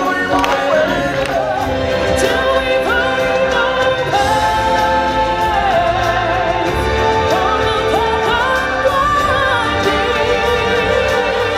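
Live stage-show music: a lead singer on a microphone holds long, wavering sung notes over amplified backing music.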